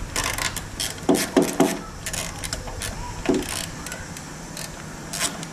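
Irregular metal clicks and clinks of a hand tool working the small bolt on the ABS sensor cable bracket, with a few louder knocks about a second in and again past three seconds.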